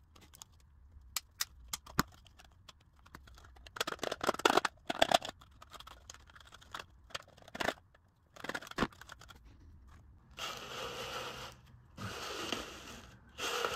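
A plastic laundry-detergent cap being trimmed by hand with diagonal cutters and a coping saw. There are sharp clicks and crunching snips, loudest about four to five seconds in, then longer scraping rasps of cutting through the plastic in the last few seconds.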